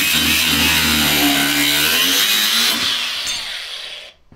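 Handheld angle grinder cutting metal on the drag rail's frame, a loud grinding whine. About three seconds in the tool is let off and winds down, falling in pitch, and it stops about four seconds in.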